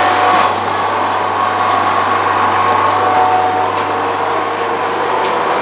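Optician's bench-top lens hand edger running, its grinding wheel spinning with a steady motor hum and whine.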